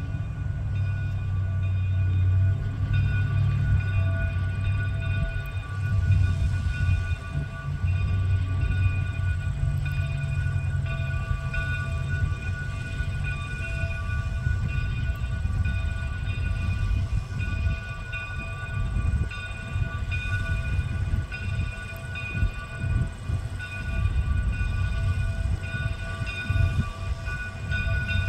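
Shay geared steam locomotive working hard with a passenger train, its rapid exhaust chuffing over a low rumble, with a steady high-pitched ringing tone running through it.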